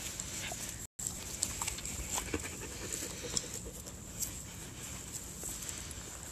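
A dog panting softly close by, with small rustles and clicks of movement in the grass; the sound drops out completely for an instant about a second in.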